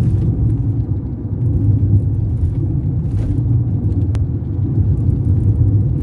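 Steady low road and engine rumble heard inside a moving car's cabin, with a single brief click about four seconds in.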